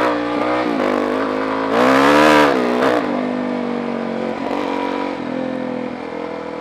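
Suzuki DR-Z400 supermoto's single-cylinder four-stroke engine under way. About two seconds in it revs up briefly on the throttle, its pitch rising then falling back with a rush of wind noise, then it settles to a steady, gradually easing cruise.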